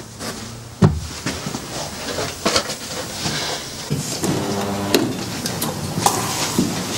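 A door being worked: a sharp knock about a second in, then clicks and knocks from the handle and latch as the door is opened.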